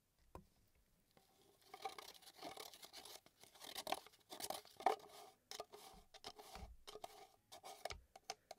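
A stir stick scraping and tapping around the inside of a plastic cup while mixing polyurethane resin: rapid, irregular scrapes that start about a second and a half in.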